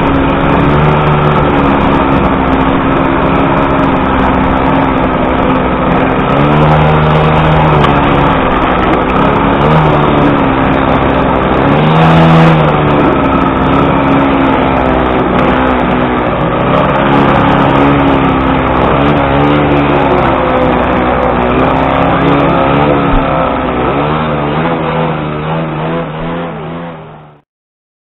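Classic 50cc two-stroke racing moped engine heard close up from onboard, running hard with the revs rising and dropping again and again. The sound fades out near the end.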